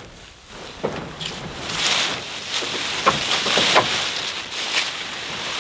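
A wooden-framed hoop pig shelter being dragged over a dry grass pasture: a rough scraping and rustling of grass and thatch under its base, louder from about two seconds in, with a few sharp knocks from the frame.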